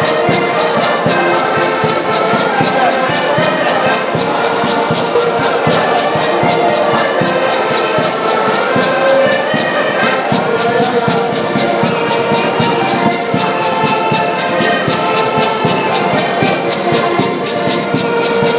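Live band music: a brass-led melody over a steady, even beat.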